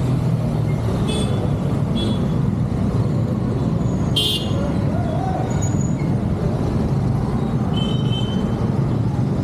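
Slow, congested street traffic: the steady hum of scooter and motorbike engines at low speed, cut by several short horn toots, the loudest about four seconds in and another near the end.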